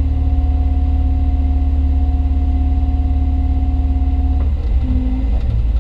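Hyundai Robex 220-9A LC excavator heard from inside its cab: the diesel engine running under load with a deep rumble and a steady whine from the working hydraulics. The whine holds for about four and a half seconds, breaks off with a faint click, and comes back briefly near the end.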